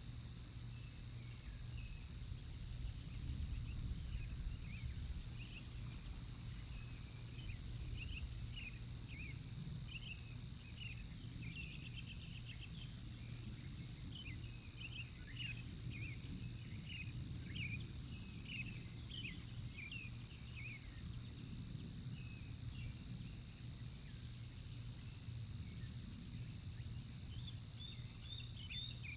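Juvenile bald eagles squeeing: a long run of short, high chirping calls that thins out after about twenty seconds and picks up again near the end. Under them is a low rumble and a steady high electronic whine from the camera.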